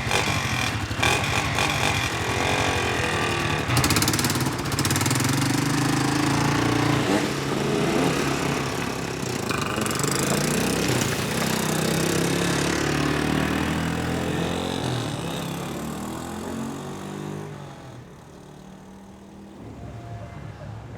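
A motor engine running, its pitch shifting up and down, then fading away about 17 seconds in.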